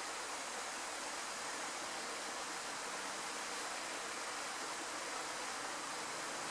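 A steady, even hiss with no separate sounds in it, like rushing water or broadband background noise.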